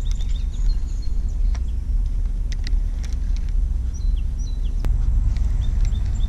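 Steady low rumble of wind buffeting the camera microphone, with runs of short high chirps at the start and near the end and a few sharp clicks in between.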